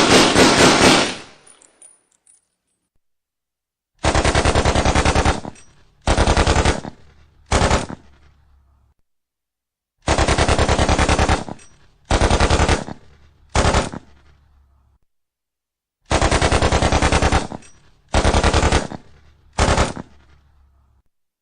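Rapid automatic gunfire fired in bursts, each with a short echoing tail. One burst ends about a second in, then a long, a shorter and a very short burst come as a group, and the group repeats three times.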